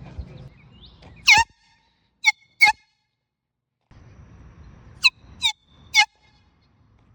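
Handheld party air horn giving six short, loud blasts: one, then two close together, then three in a row near the end.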